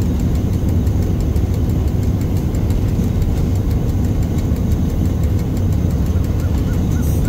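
Shunting locomotive's diesel engine running with a steady low rumble, heard from inside its cab.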